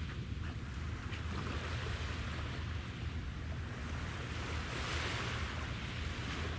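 Sea water washing and wind, an even hiss that swells a little about five seconds in, over a steady low rumble.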